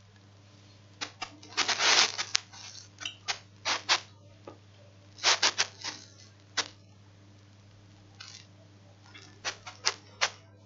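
Computer keyboard keys clicking in irregular short runs of typing, over a faint steady low hum.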